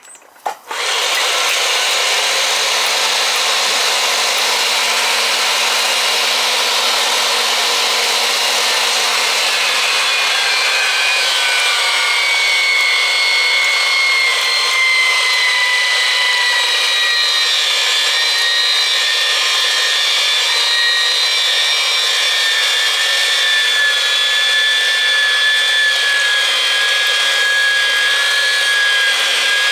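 Electric pipe threading machine running forward, its die cutting a thread onto a steel pipe. It starts about a second in and runs steadily, with a high whining tone that slowly falls in pitch.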